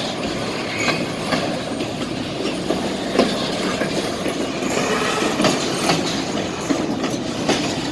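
Freight train cars rolling past at close range: a steady rumble of steel wheels on the rails, broken by irregular clacks and clunks.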